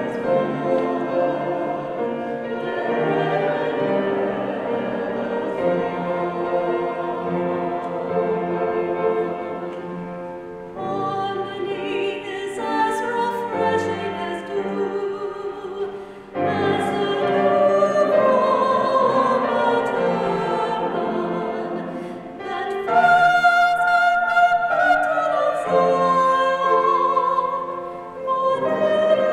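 Mixed church choir singing an anthem with grand piano accompaniment, in long held phrases with brief breaks between them; the singing swells fullest a little past two-thirds of the way through.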